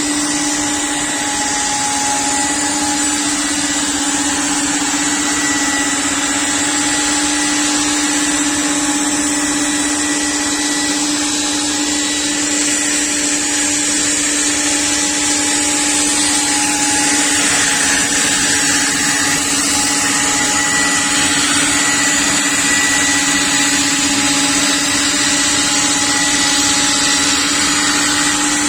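CNC panel-cutting machine running steadily: a constant tone over a continuous rushing noise, with no breaks.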